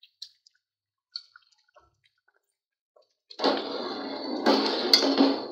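Faint splashes as milk is poured into a metal pot of cooked sago pearls, then from about three seconds in a ladle stirring the milk and sago in the pot, a steady swishing with a sharp clink of ladle on pot near the end.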